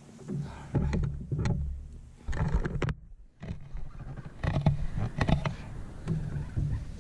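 Knocks, bumps and rattles of gear and bodies moving about in a small fishing boat, coming in several uneven clusters as a hooked catfish is worked toward the boat.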